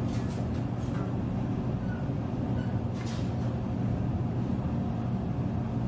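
Shinkansen bullet train running, heard from inside the passenger cabin as it accelerates away from the station: a steady low rumble and hum, with two brief rushes of hiss, one just after the start and one about three seconds in.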